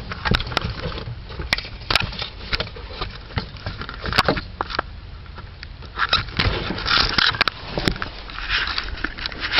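Handling noises as a hose and work light are being positioned: scattered sharp clicks and light scrapes, with a few breathy rustling stretches in the second half.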